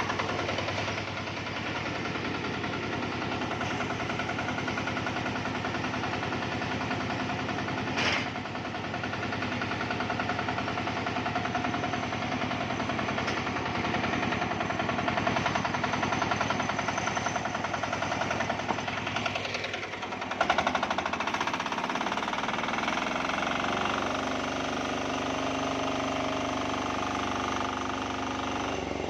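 Small Matsumoto diesel engine driving a homemade sawmill, running steadily with a rapid knocking beat. There is a sharp click about eight seconds in, and the engine's note changes about twenty seconds in.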